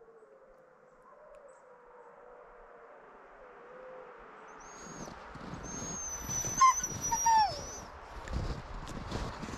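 Distant wolves howling: one faint, long, wavering howl. About halfway through, a sled dog close by starts whining high-pitched, with two sharp yelps that drop in pitch, among scuffling movement.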